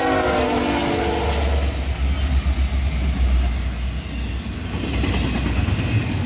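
Freight train passing close by: the end of a diesel locomotive's horn blast slides down in pitch and stops about a second in, leaving the low rumble of the Union Pacific and Norfolk Southern locomotives' engines and then the rolling noise of the double-stack container cars going by.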